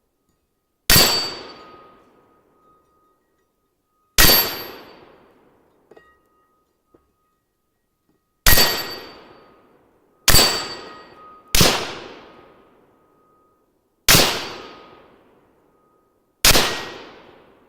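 Seven single shots from an AR-15 rifle in 5.56, fired at an unhurried, irregular pace. After several of them a faint, lingering ring is heard from the 8-inch AR500 steel gong being hit.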